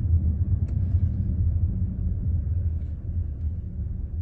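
Steady low rumble with a low hum running through it, and a faint click a little under a second in.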